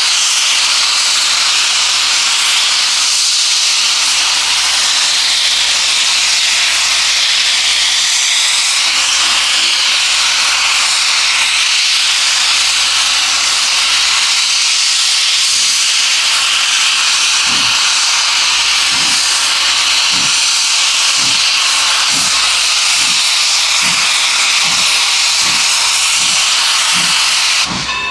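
Norfolk & Western 475, a 4-8-0 steam locomotive, standing with steam hissing loudly and steadily. A little past halfway, slow exhaust chuffs begin, about one and a half a second, as it starts pulling the train.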